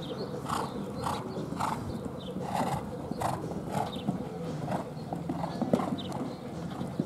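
Horse cantering on sand footing, its strides in a steady rhythm of nearly two a second, with one sharper thud about six seconds in.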